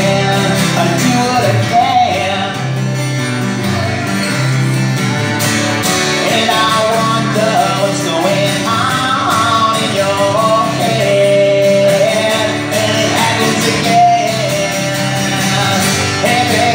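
Live acoustic duo playing: two acoustic guitars strummed, with a man singing a melody over the chords.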